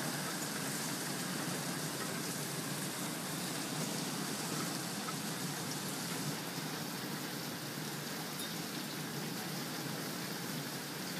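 Small hailstones and rain falling steadily onto a concrete patio and surrounding garden, a dense continuous hiss of impacts that eases slightly in its top end about halfway through.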